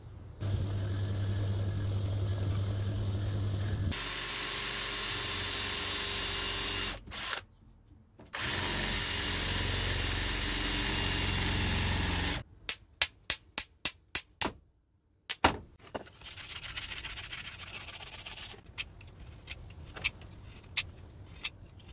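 Power drill boring the old wooden handle stub out of the eye of a rusty hammer head, in several steady runs with a short break. Then about eight sharp metallic taps in quick succession, a short rasping scrape, and faint scattered clicks of a blade paring a new wooden handle.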